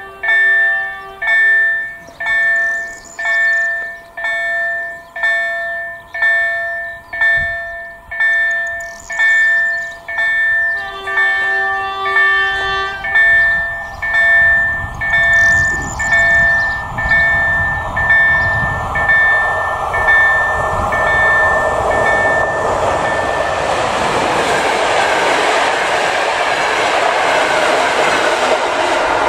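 Bombardier KLD-4103 electronic level-crossing bells ringing steadily about once a second. An approaching train sounds its horn briefly near the start and again for about two seconds about 11 s in. From about 14 s the rumble of the passenger train grows, and from about 22 s the train passing over the crossing drowns out the bells.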